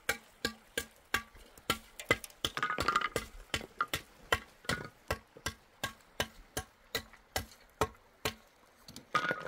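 Sharp, short knocks repeated steadily about three times a second, with a brief break near the end.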